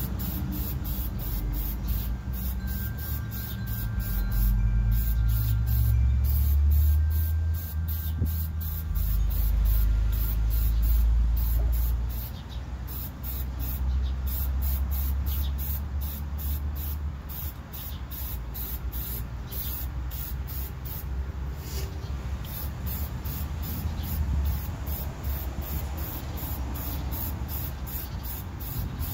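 Aerosol spray paint can hissing as hanging tiller pulleys are painted, over a low rumble that is loudest in the first half.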